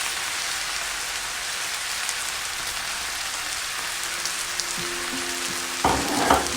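Chicken pieces, onions and spices frying in oil in a pot, a steady sizzle. Near the end a few louder, sharper bursts rise over it as the mixture is stirred.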